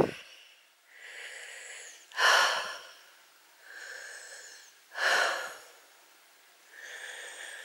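A hiker's heavy breathing close to the microphone: slow, even breaths, the quieter ones alternating with louder ones about two and five seconds in, as she is winded from climbing the steep path.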